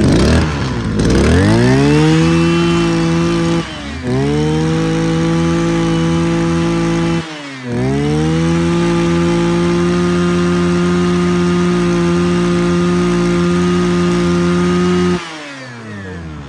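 Echo (Kioritz) 31cc two-stroke brush cutter engine revved up to high speed and held there. The revs dip briefly twice, about 4 and 7 seconds in, and pick straight back up, then fall back toward idle near the end.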